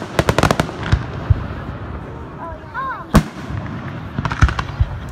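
Aerial fireworks going off: a sharp bang, then a quick run of crackling reports, a single loud bang about three seconds in, and another quick cluster of bangs near the end.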